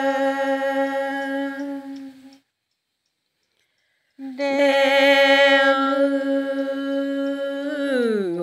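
A single voice singing a Karen tha (traditional chanted poem) in long, steady held notes. The voice breaks off into dead silence about two seconds in, comes back about two seconds later, and slides down in pitch near the end.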